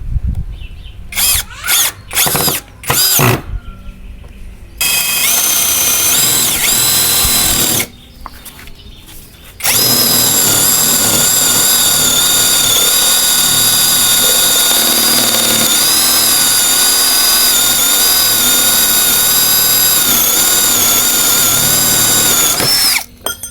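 Hukan three-function cordless drill's motor whining under the trigger. There are a few short bursts that rise in pitch, then a run of about three seconds, then a long steady run of about thirteen seconds that stops sharply near the end.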